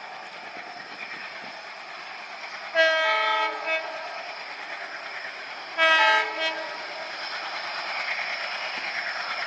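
Indian Railways locomotive horn sounding two short blasts about three seconds apart, over the steady running noise of a train.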